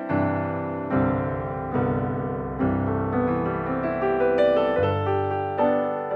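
Background piano music, calm and slow, with a new note or chord struck roughly every second and left to ring.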